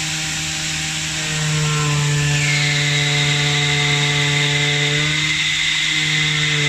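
CNC oscillating-knife cutter running, its vibrating blade cutting through foam: a steady motor hum over a hiss. It gets louder about a second in, and a higher whine joins a second or so later.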